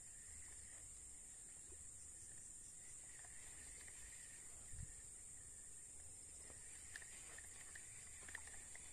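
Faint, steady high-pitched drone of crickets and other insects, with a few soft clicks and one brief low thump about five seconds in.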